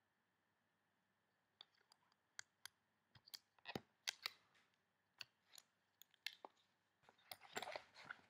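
Faint, scattered clicks and taps of an Ego 11 paintball marker and its parts being handled, starting about a second and a half in and coming irregularly, with busier handling noise near the end.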